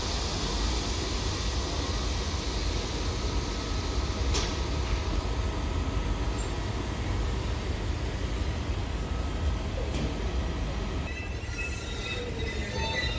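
A train running on the rails with a steady rumble. Near the end, thin high-pitched wheel squeal starts up.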